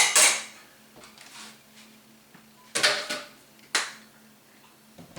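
Short clatters of kitchen items being handled: a burst at the start, then two more about three seconds in. Over a faint steady hum.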